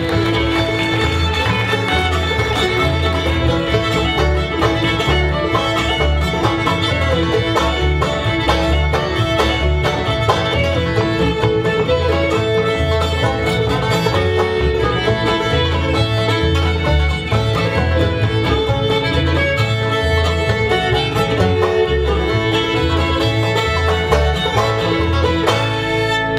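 Bluegrass band playing an instrumental passage: banjo, fiddle, acoustic guitar and upright bass, the bass notes keeping a steady beat under the fiddle melody.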